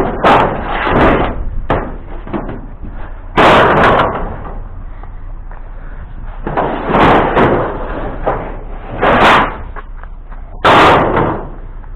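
A series of loud bangs and slams, about six of them spread out, with quieter rattling and knocking between.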